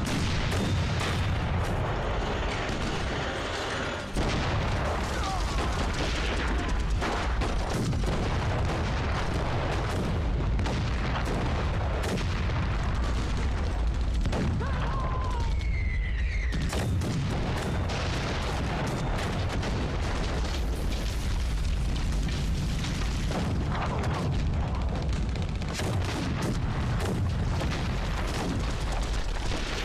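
Artillery barrage from field guns: repeated gun blasts and shell explosions running into one another in a continuous rumble. A short whistling glide cuts through about halfway through.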